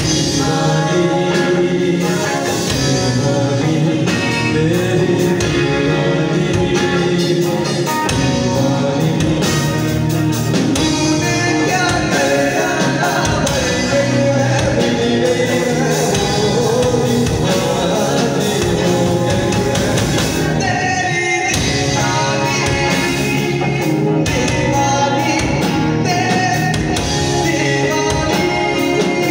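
Live band playing amplified: a male singer on microphone over electric guitar, a Korg keyboard and a drum kit.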